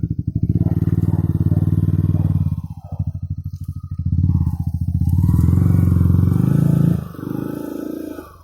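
Yamaha R15 V3's 155 cc single-cylinder engine revving hard as the motorcycle is pushed through mud. The revs are held high, dip briefly about three seconds in, climb again, then drop off about seven seconds in and fade near the end.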